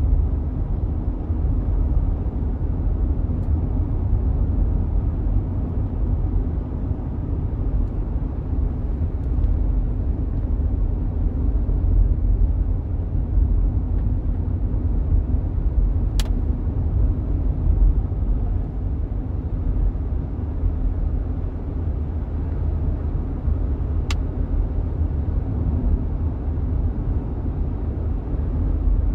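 Steady low rumble of a car driving at road speed, engine and tyre noise heard inside the cabin. Two brief soft clicks come past the middle, about eight seconds apart.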